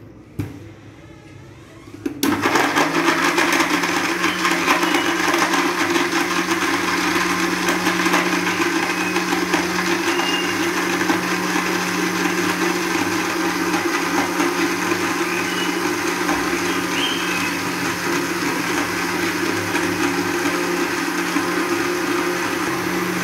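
Westpoint juicer-blender blending a milk, almond, apple and date mixture: a click of the switch, then about two seconds in the motor starts suddenly and runs at a steady speed with a constant hum.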